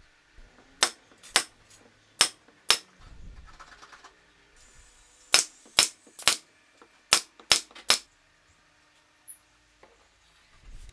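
Ten sharp knocks of nails being driven into wooden boards, in two runs: four, a short pause, then six more.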